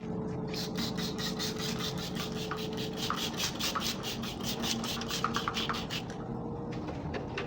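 Rapid back-and-forth scrubbing strokes, about five a second, over a faint steady hum; the strokes stop about six seconds in.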